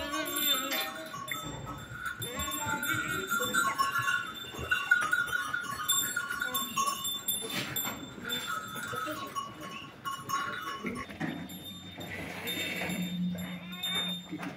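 A flock of sheep bleating in a crowded pen, several calls overlapping.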